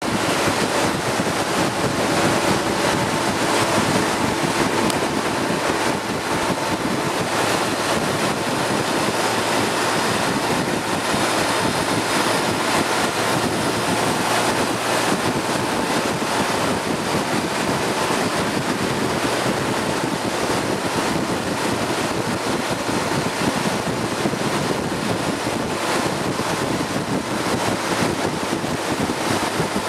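Steady wind noise rushing over the microphone of a camera moving at road speed, with vehicle engine and road noise underneath.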